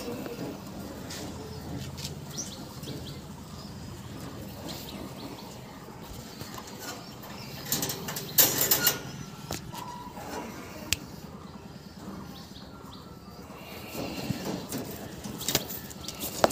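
Caged Lahore (Sirazi) pigeons stirring and flapping their wings, with a louder flurry of wingbeats about eight seconds in and more near the end.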